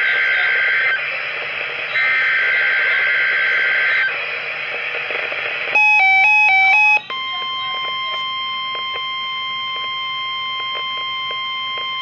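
Reecom NOAA weather alert radio receiving a new alert, a tornado watch: two buzzy, warbling SAME data bursts of about two seconds each over radio hiss. About six seconds in, the radio's own stepping multi-tone alarm chime sounds for about a second and cuts off as STOP is pressed. Then the steady single-pitch 1050 Hz NOAA Weather Radio alert tone starts and holds.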